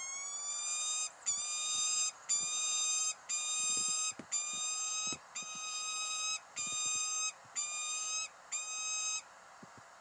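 Peregrine falcon calling: a series of nine drawn-out, whining calls at about one a second, the first rising in pitch and the rest held level. They stop a little after nine seconds in.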